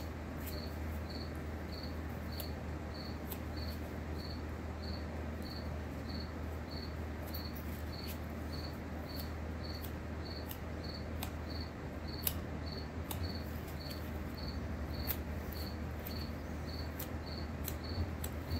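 A steady low hum under a short, high chirp that repeats evenly just under twice a second, with scattered faint clicks and ticks from the skinning of a mink pelt.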